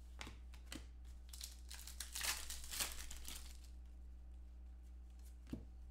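Foil wrapper of a football trading-card pack crinkling and crackling as hands open it and pull out the cards. The rustling is thickest in the first half, with a single click near the end.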